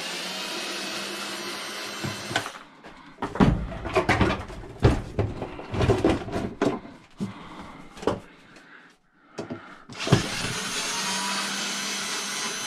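Cordless drill running as it backs screws out of a garage door opener's casing, in a steady run of about two seconds. Then comes a stretch of irregular knocks and clatter as the unit is handled and turned over, and the drill runs steadily again for the last couple of seconds.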